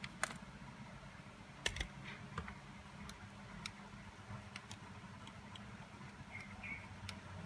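Scattered light clicks and taps from fingers handling an iPhone 6s Plus, tapping its screen and gripping its frame, over a steady low hum.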